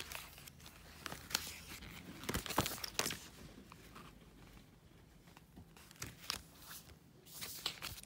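Paper sticker books and sticker sheets rustling and crinkling as they are handled and shuffled, with irregular light crackles and taps.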